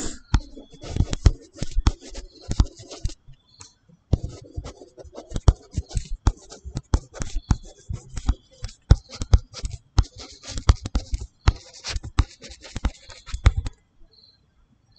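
A stylus tapping and scratching on a tablet screen during handwriting: quick clicks and scrapes in runs of a few seconds, with a short pause about three seconds in, falling quiet near the end.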